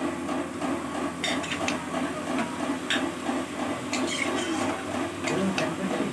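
A spatula stirring and scraping chicken curry in a kadai as the meat is fried down in its masala (kosha). The oil sizzles steadily, with sharp clicks now and then as the spatula knocks against the pan.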